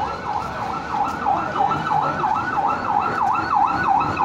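Electronic emergency-vehicle siren in fast yelp mode, its pitch rising and falling about three to four times a second without a break, growing a little louder about a second in.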